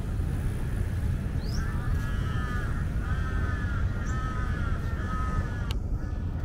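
A bird calling over and over, a string of short pitched calls about half a second each, over a steady low rumble, with one sharp click near the end.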